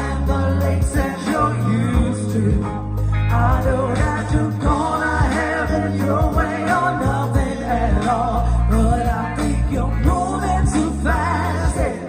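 Live rock band playing through a PA, with electric guitar over a heavy bass line and a vocalist singing the melody.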